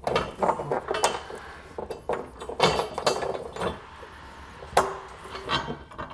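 Steel hardware clinking and knocking as a bolt is fitted through a steel fifth-wheel base rail. There are several sharp metal knocks, the loudest about five seconds in.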